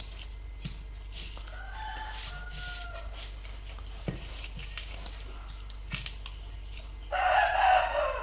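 A bird calling: a faint, drawn-out call about two seconds in, then a louder, harsher call near the end, over a low steady hum with a few light clicks.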